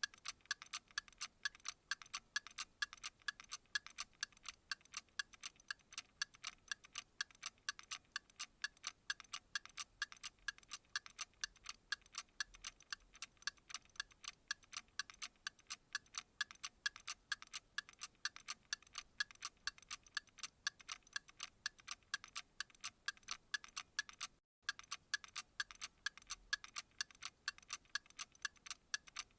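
Steady, even clock-like ticking, sharp and fairly high-pitched, with a brief dropout about five seconds before the end.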